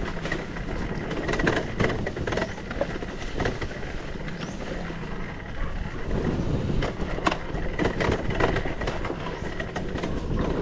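Enduro dirt bike's engine running while riding a rough trail, with frequent irregular knocks and rattles.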